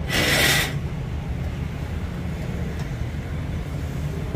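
Steady low rumble of street traffic, opened by a brief loud hiss lasting well under a second.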